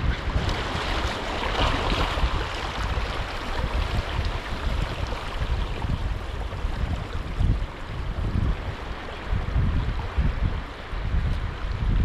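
Sea waves washing in, with wind buffeting the microphone in uneven gusts of low rumble.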